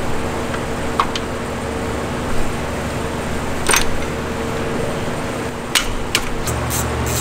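A few sharp metallic clicks and taps from hands working at an engine's timing chain, with a cluster of clicks near the end as a socket extension goes in. A steady background hum runs underneath.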